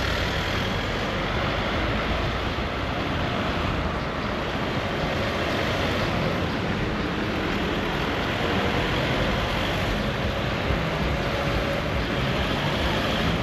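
A car driving along a road: steady, unbroken engine and tyre noise.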